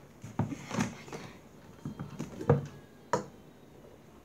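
Plastic water bottle being handled and its screw cap twisted off, giving a run of short plastic clicks and light knocks, the sharpest about two and a half and three seconds in.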